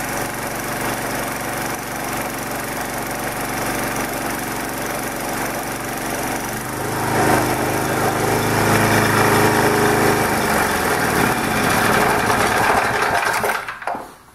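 3.5 horsepower Tecumseh single-cylinder small gasoline engine running flat out on a dynamometer, shaking heavily on its mount. About seven seconds in it gets louder and its note changes as it labours under the brake load, and near the end the sound cuts off.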